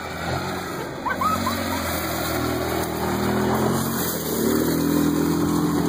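Small youth ATV engine running under throttle as the quad rides a dirt track, its pitch rising in steps around the middle and again near the end.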